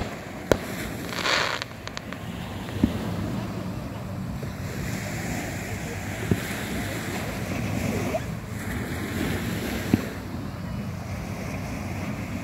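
Distant fireworks going off: four sharp booms a few seconds apart over a steady rush of wind and small waves on the shore.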